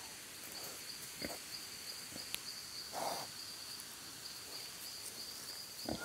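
Quiet farmyard ambience under a steady, high-pitched insect buzz, with a few faint ticks and one short breathy puff about three seconds in.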